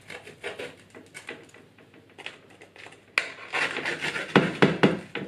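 A knife sawing through a baked, crusty baguette on a metal oven tray: a run of short scraping strokes, with the blade catching the tray. The strokes get louder from about three seconds in, starting with a sharp click.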